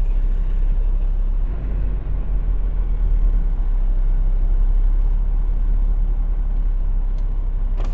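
Semi truck's diesel engine idling with a steady low rumble. A short click sounds near the end.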